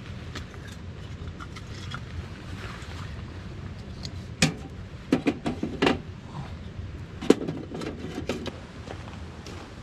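Split wood kindling knocking and clattering as it is handled and loaded into a small steel wood stove's firebox: a sharp knock about halfway in, a quick run of knocks and cracks just after, and one loud sharp knock past the two-thirds mark. A steady low background noise runs underneath.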